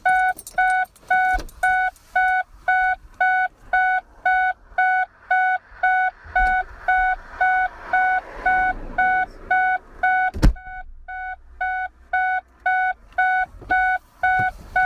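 Car warning chime beeping without a break, evenly spaced identical tones about two and a half times a second, with a single sharp thump about ten seconds in.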